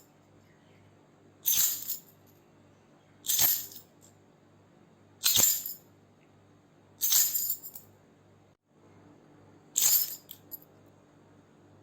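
A bunch of keys shaken in five short jingles, about two seconds apart, each lasting about half a second. The last jingle trails off in a few small clinks.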